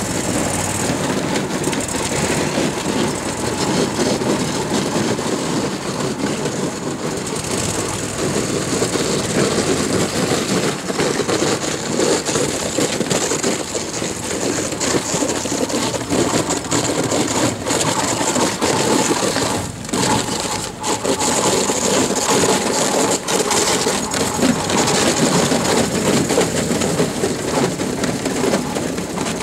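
A small rescue boat's outboard motor running as the boat breaks through inch-thick ice, with continuous crackling and crunching of the breaking ice.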